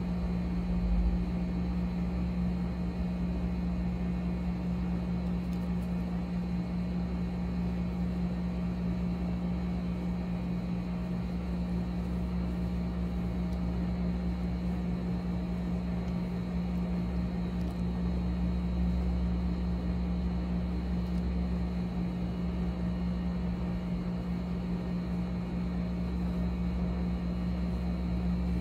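Steady low machine hum with several fixed tones, unchanging throughout, and a soft low bump about a second in.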